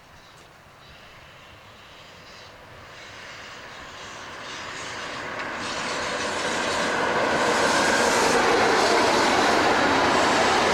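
A train approaching on the line, its noise growing steadily louder for about seven seconds until it is running close by as a loud, steady rush of wheels on rails.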